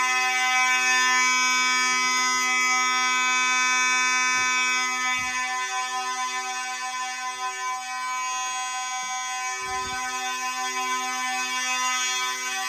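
Several fire alarm horns sounding together, a steady, really loud buzzing tone. One of the horns cuts in and out while another holds continuously. A few soft low knocks come through underneath.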